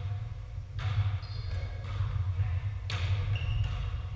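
Volleyball being struck during a rally in a reverberant gym: two sharp smacks of the ball, about a second in and again near three seconds, with a few short high squeaks between them over a steady low hum.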